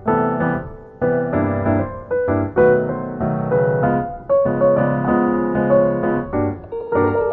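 Background piano music: notes and chords struck one after another at an easy pace, each fading before the next.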